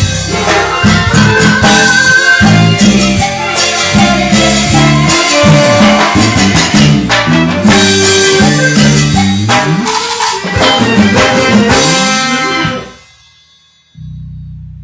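Live band playing an upbeat Latin tropical dance tune with percussion and no singing, stopping abruptly about twelve and a half seconds in. A low steady hum starts about a second later.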